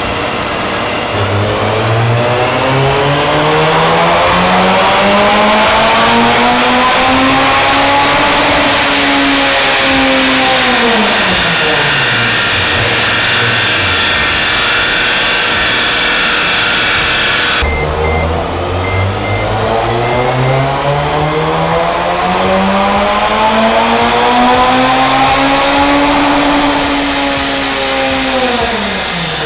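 Rotrex-supercharged Honda K20 four-cylinder of a Civic Si pulling at full throttle on a chassis dynamometer. The revs climb steadily for about nine seconds toward 8,000 rpm and more, then fall away as the throttle closes. This happens twice.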